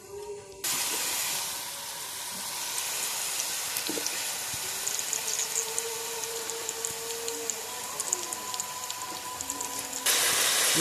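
Shredded cabbage frying in hot oil in a karahi, with a steady sizzle. The sizzle starts suddenly about half a second in, as the vegetables go into the oil, and grows louder again just before the end.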